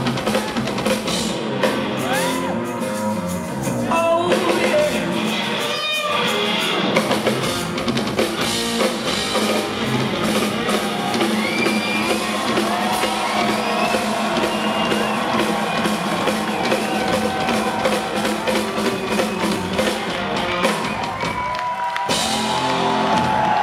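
Rock band playing live and loud, with distorted electric guitar, a drum kit and a male singer's high yells over them. Near the end the band drops out and the crowd cheers.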